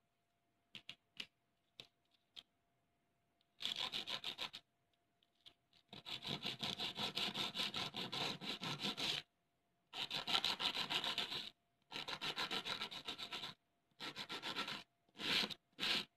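Fingers crushing and rubbing a homemade naphthalene (mothball) piece into powder against a board: a few light clicks as pieces are handled, then repeated bouts of rapid, gritty scraping, each lasting one to three seconds.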